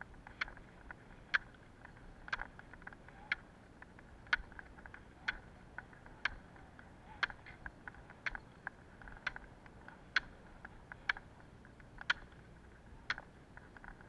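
Roller-ski poles' metal tips striking asphalt, a sharp click about once a second in an even rhythm, over a faint steady noise.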